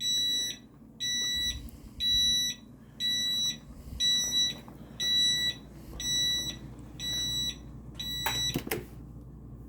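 Power wheelchair's reverse-warning beeper sounding as the chair backs up: a high-pitched beep about once a second, nine times, stopping near the end.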